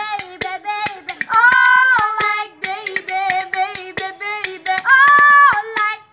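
A high female singing voice, holding one long note about a second in and another about five seconds in, over a quick run of sharp clicks or claps.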